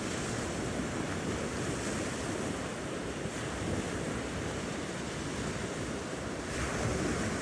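Ocean surf washing onto the beach with wind buffeting the microphone, a steady rushing that swells louder near the end.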